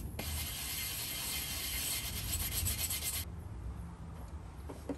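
Rapid back-and-forth scrubbing by hand on the sealing face of an exhaust manifold flange, cleaning light carbon off the gasket surface. It stops abruptly a little over three seconds in.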